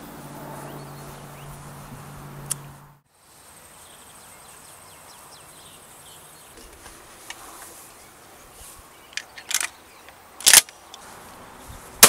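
Quiet outdoor background with a low steady hum for the first three seconds, broken off by a sudden cut. Near the end come a few sharp clacks, the loudest about a second and a half before the end.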